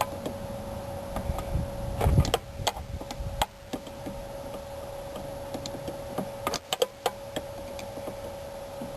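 Metal clicks and knocks of a wrench and vice-grip pliers working the top nut off a rear shock absorber's shaft, with a heavier cluster of knocks about two seconds in as the stuck nut is forced loose.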